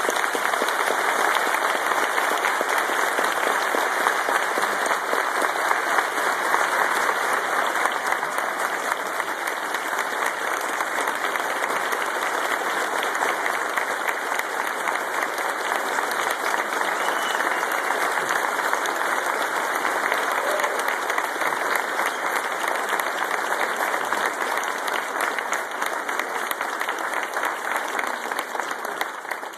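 Audience applause, a dense steady clapping that starts abruptly and tapers off gradually near the end.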